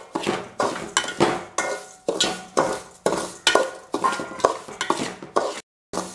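Metal spoon scraping and stirring semolina roasting in ghee in a metal pan, in quick repeated strokes several times a second. The sound drops out completely for a moment near the end, then the stirring resumes.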